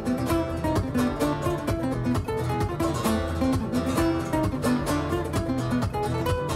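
Background music: acoustic guitar playing a quick run of plucked and strummed notes at a steady pace.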